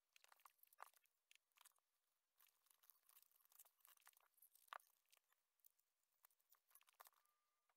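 Faint rustling and small irregular crackles of white stabilizer backing being peeled and torn away from stitched embroidery pieces by hand, with a couple of sharper snaps.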